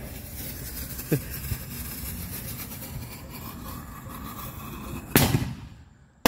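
A ground-planted firework tube hissing and spitting sparks as it burns for about five seconds, then firing once with a loud, sharp burst about five seconds in as its shell launches.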